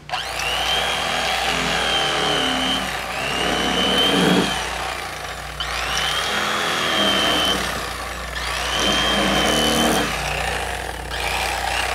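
Corded electric fillet knife running as it cuts through a bowfin fillet along the rib cage. Its motor whine comes and goes in about four stretches, bending in pitch as each stroke starts and ends.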